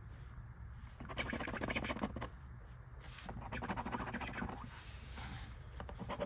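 A scratch-off lottery ticket being scratched, the coating scraped off in three or four short spells of rapid rasping strokes.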